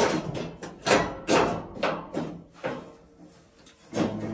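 Perforated metal stone-retainer cage of a Saunum sauna heater knocking and rattling against the heater as it is worked down onto its slots: a run of sharp knocks, half a dozen or so, at uneven intervals.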